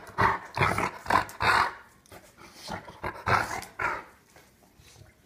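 Rottweiler huffing and snorting in a run of short, noisy breaths, about two a second, that die away after about four seconds: the snuffling that goes with its teeth-baring 'smile'.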